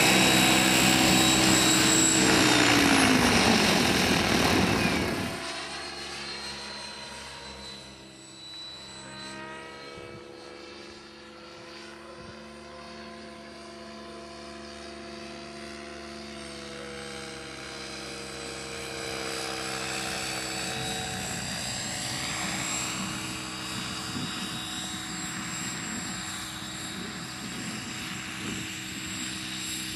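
Kasama Srimok 90 electric RC helicopter in flight: the whine of its brushless motor and the rotor blades. It is loud as it passes close at the start, with a falling pitch about three seconds in, then fades while it flies high and far off. Its pitch glides up and down with its manoeuvres, and it grows louder again as it comes back low over the field.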